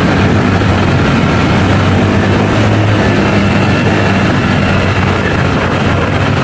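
Honda PCX 160 scooter's single-cylinder engine running at a steady cruising speed inside a road tunnel, with a loud steady rush of wind and road noise over a low engine hum.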